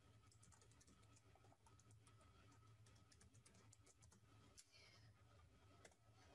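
Faint typing on a computer keyboard: a quick, irregular run of keystrokes, thinning out for a moment about four seconds in.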